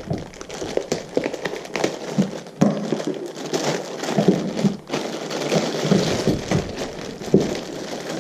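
Packaging rustling and crinkling in irregular bursts with small clicks and knocks as items are handled and lifted out of the box.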